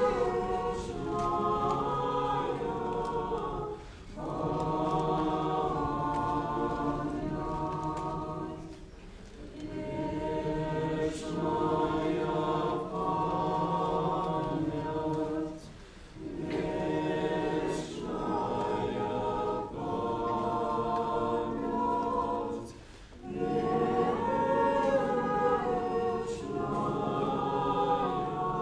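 Unaccompanied church choir singing a slow memorial chant for the dead, in long held phrases with short breaks between them.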